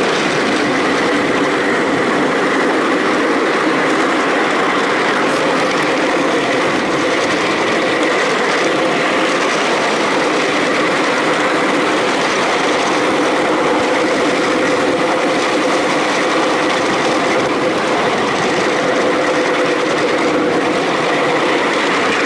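Ride-on miniature park railway train running along its narrow-gauge track: a steady rolling noise of small wheels on the rails, with a faint steady whine through it.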